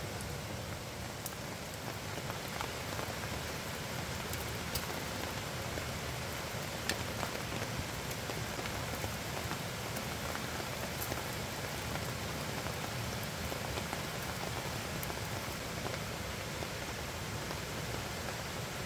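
Steady rain falling, with a few scattered sharp ticks of single drops landing close by.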